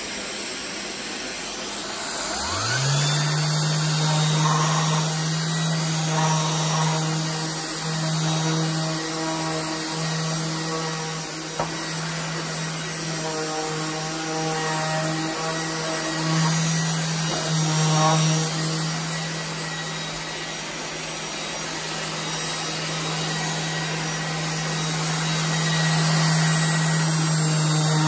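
Festool ETS 150/3 EQ random orbital sander starting up about two and a half seconds in, its motor rising in pitch and then running steadily while sanding stained pallet-wood boards.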